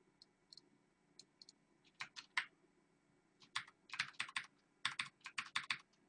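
Computer keyboard keys clicking softly. A few scattered taps come first, then three quick runs of keystrokes from about two seconds in.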